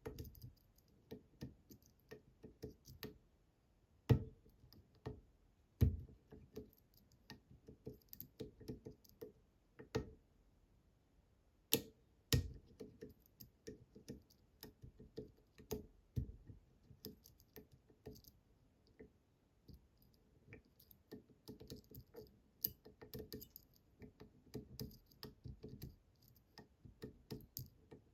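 Pick and tensioner working the seven spring-loaded pins of a Bramah-style pump lock: irregular light clicks and taps as the pins are pushed down over and over, with a few sharper, louder knocks.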